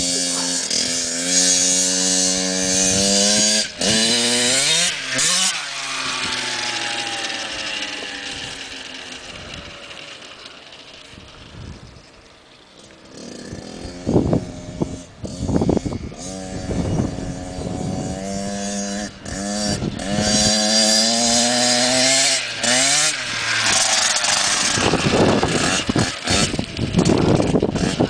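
Small dirt bike's engine revving, its pitch climbing and dropping repeatedly as the throttle opens and closes. It fades as the bike rides away, quietest about halfway through, then grows loud again as it comes back.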